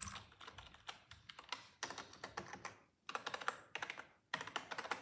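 Computer keyboard keys being pressed in quick runs of clicks, with two short pauses.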